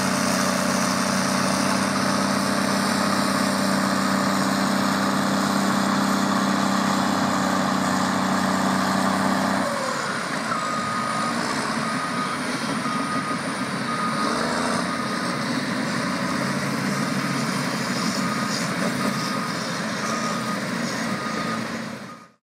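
Heavy diesel earthmoving machine, a beach bulldozer, running steadily and close. About ten seconds in its engine note drops away, and a reversing alarm starts beeping at an even pace over the machinery. The sound fades out at the very end.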